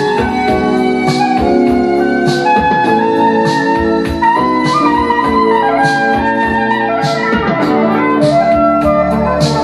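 Music from a vinyl record playing on a Pioneer PL-630 turntable, heard through loudspeakers, with a regular beat a little over once a second.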